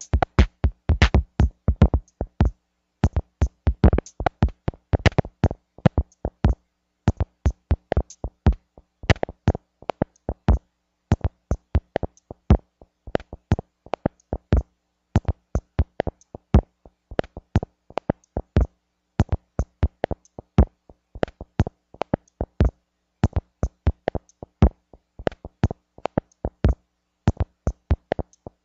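Electronic music made of short, sharp percussive hits in an uneven, stuttering rhythm, with dead silence between the hits.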